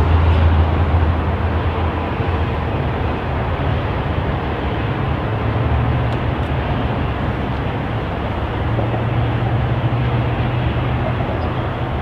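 MPI MP36PH-3C diesel-electric locomotive, with its 16-cylinder EMD two-stroke diesel engine, working under power as the commuter train pulls away, a steady low drone whose note shifts higher partway through.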